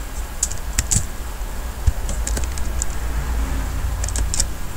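Computer keyboard keys clicking in an irregular scatter of presses as text is deleted, over a steady low hum.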